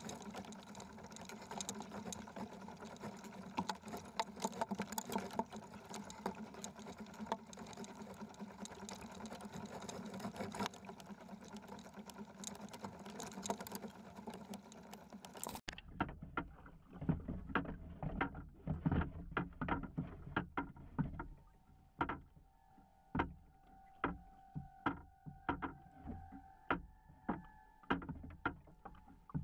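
Hobie fishing kayak under way: steady rush of water along the hull with a low hum. About halfway it changes abruptly to a run of regular knocks, about two a second, with a faint steady high tone in the last few seconds.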